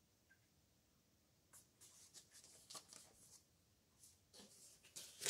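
Quiet rustling of paper being handled as a booklet and loose papers are set down and moved about, starting after about a second and a half, pausing briefly, then picking up again near the end.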